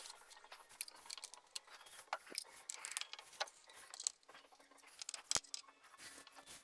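Faint handling noise of small clicks, taps and rustling as parts and tools are moved about, with one sharper click about five seconds in.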